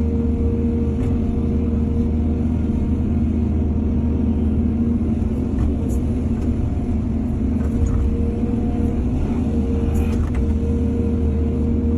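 Heavy diesel engine of earthmoving machinery running steadily at a constant pitch, with a few faint light clanks over the drone.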